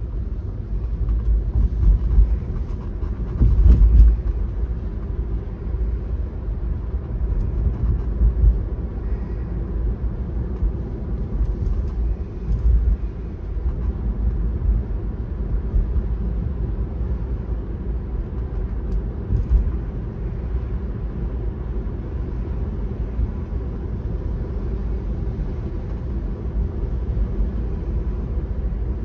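A car driving on a wet road, heard from inside the cabin: a steady low rumble of road and engine noise, with a louder thump about four seconds in.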